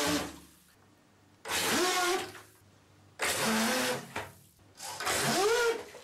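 Homemade RC speedboat's brushless motor and propeller throttled up in four short bursts of about a second each, churning the bath water into spray. Each burst is a whine that rises and falls over a rush of splashing water.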